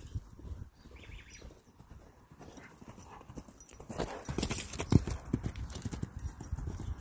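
Hoofbeats of a loose horse running on a sandy dirt arena: faint at first, then a quick run of thuds growing louder as it comes close from about four seconds in, the loudest about five seconds in.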